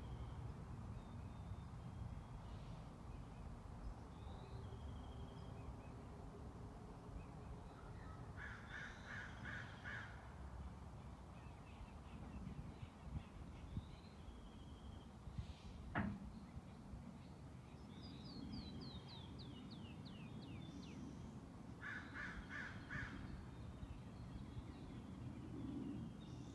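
Forest ambience: a low steady rumble with birds calling over it. A rapid, rough, repeated call comes in two bursts, about a third of the way in and again near the end, with short whistled notes scattered throughout and a quick run of descending chirps past the middle. A single sharp click sounds a little past the middle.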